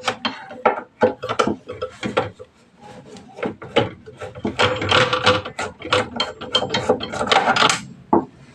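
A screwdriver undoing the screws that hold the circuit board inside a metal inverter case: a run of ratchety clicks and metal scrapes that comes thickest in the second half.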